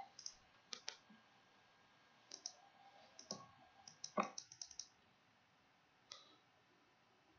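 Faint, scattered clicks from someone working a computer while recording the presentation, bunched in small groups around the middle, with a couple of slightly fuller soft knocks.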